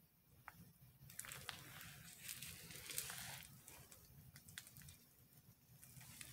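Faint crinkling of a plastic piping bag and disposable plastic gloves being squeezed while piping soap batter, with a few small clicks, loudest from about one to three and a half seconds in.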